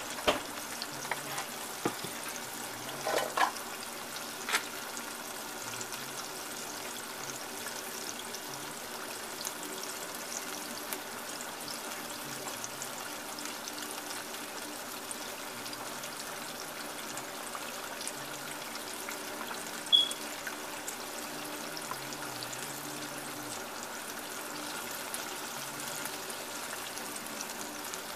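Battered chicken gizzards deep-frying in a pan of oil: a steady bubbling sizzle, with a few sharp clicks and pops and a short high blip about two-thirds through.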